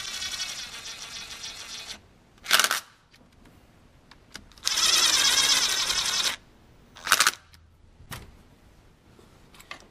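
Small cordless quarter-inch power driver running in bursts as it spins oil pump bolts in and snugs them down. There is a run of about two seconds, a short blip, a longer run of under two seconds, then another short blip.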